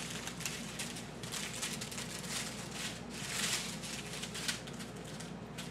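Strips of heat-sealed plastic diamond-painting drill packets crinkling and rustling as they are handled, in uneven bursts, loudest about three seconds in.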